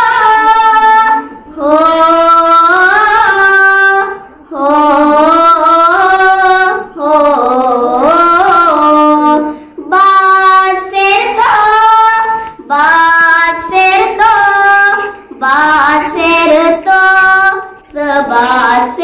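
A young girl singing a Kashmiri nazm solo and unaccompanied, in phrases of two to three seconds with long held, gliding notes and short pauses for breath between them.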